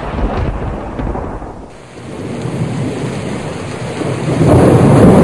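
Thunderstorm sound effect: steady heavy rain with rolling thunder. The rumble eases about two seconds in, then builds to a loud swell near the end.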